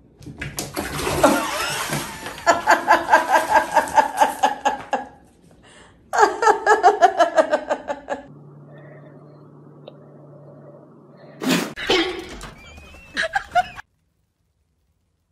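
A person laughing hard in two long bursts of rapid, pulsing laughs. Then a low steady hum and a few short, sharp sounds near the end.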